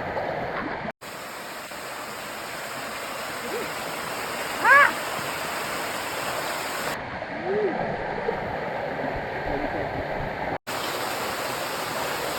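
Steady rush of rainforest stream water, with a short high call about five seconds in and two brief cuts in the sound.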